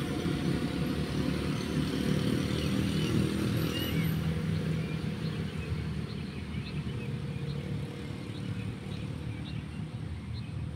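Steady town road traffic, mostly motorcycle engines with cars, passing continuously; it eases slightly in loudness toward the end.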